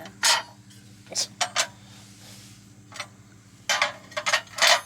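Camping cookware and gear being handled: a series of short clinks and knocks, several together near the end, over a steady low hum.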